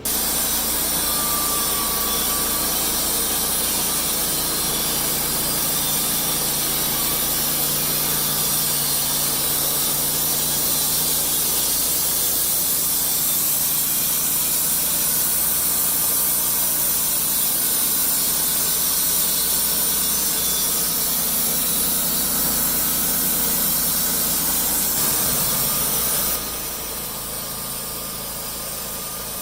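Wood-Mizer LT15 band sawmill running, its band blade sawing through an incense cedar log with a steady, loud noise that drops off noticeably near the end.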